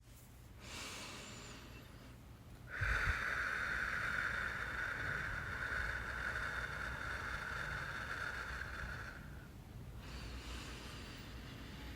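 A person breathing slowly and deeply through the mouth. A short breath comes about a second in, then a long, louder breath lasting about six seconds, and another breath begins near the end.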